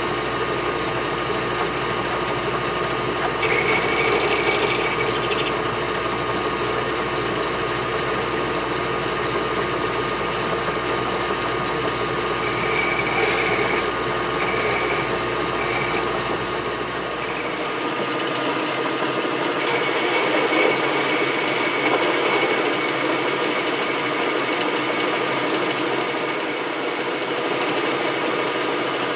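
Metal lathe running steadily while a cutting tool turns a taper on a metal shaft, fed by hand with the compound slide. A faint high whine from the cut comes and goes several times.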